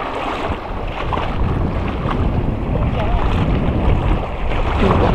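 Wind rumbling on the microphone over small sea waves lapping and washing in shallow water.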